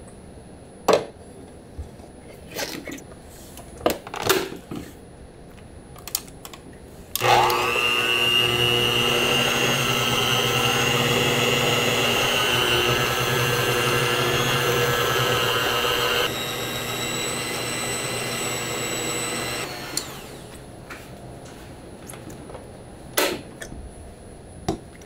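A few knocks and clatters, then a motor-driven food mixing machine starts suddenly about seven seconds in and runs with a steady whine, running quieter from about sixteen seconds before stopping near twenty seconds; more knocks follow.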